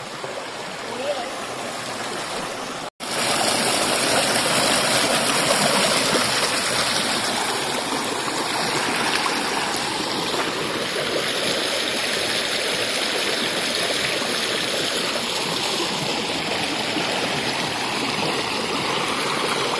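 Flowing stream water rushing steadily at a waterfall. It breaks off for an instant about three seconds in and comes back somewhat louder.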